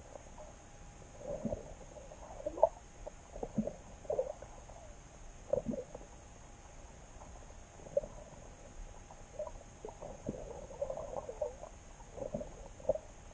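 Muffled underwater sound picked up by a submerged camera: irregular gurgles and soft knocks about once a second, over a faint steady high whine.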